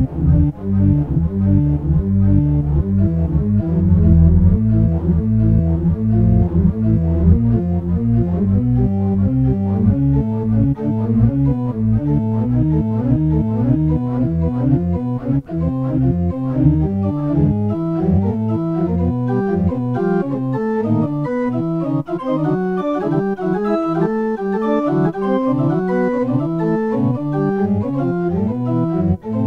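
Electro-acoustic piano music: a dense, fast stream of notes, heavy in the low register for the first ten seconds or so, then thinning in the bass and moving higher.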